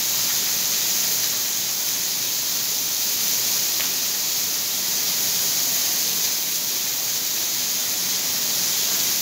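Barbecue chicken sizzling on a hot steel griddle plate over a gas burner: a steady, even hiss.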